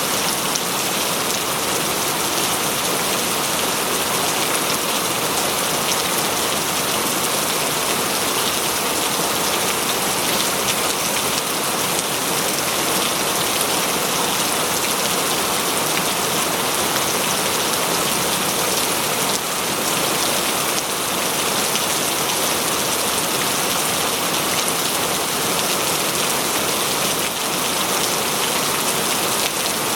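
Steady rain falling in a forest, an even hiss of many drops on leaves and the ground.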